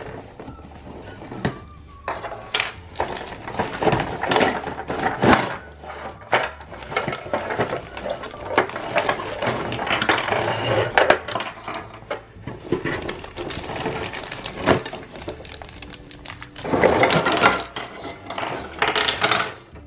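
A Play-Doh Burger Builder playset being unboxed: cardboard box flaps and packaging rustling while hard plastic pieces knock and clatter as they are lifted out and set on a tabletop, in irregular clicks with busier bursts along the way.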